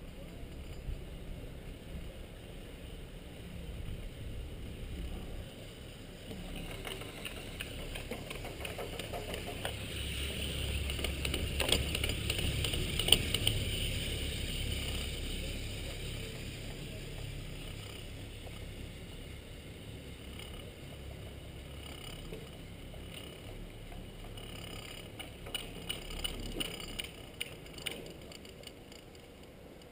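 Chairlift running with a steady rumble. About twelve seconds in it swells and clatters as the chair passes a lift tower's sheave wheels, and a few more clicks come near the end.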